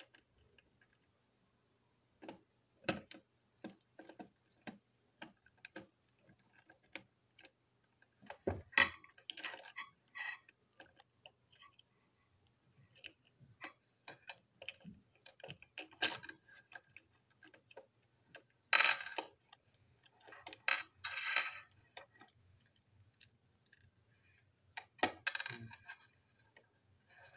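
Plastic toy train engine being taken apart by hand: scattered sharp clicks and ticks of plastic parts, with a few longer, louder rattles as pieces are worked loose and small metal parts clink.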